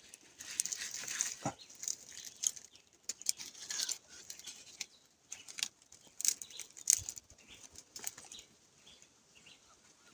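Irregular rustling and crackling with scattered sharp clicks, like dry plant material being handled.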